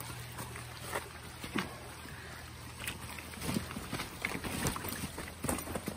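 Shallow stream running over stones, with scattered knocks and clatters from feet on the rocks and a loaded bicycle being walked across the ford, busier in the second half.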